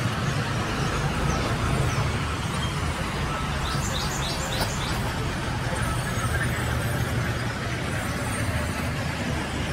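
Sawmill band saw running steadily as a log is fed through it: a continuous machine hum with sawing hiss. About four seconds in, a bird chirps a quick run of about five notes.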